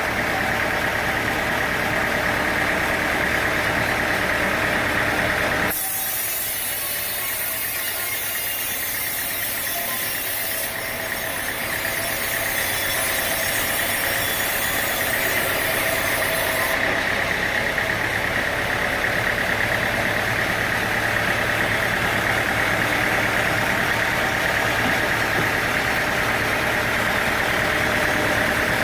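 An engine running steadily, with no sawing strokes heard. Its sound changes abruptly about six seconds in, and again near eleven and seventeen seconds in: the low rumble drops out and a high hiss comes and goes.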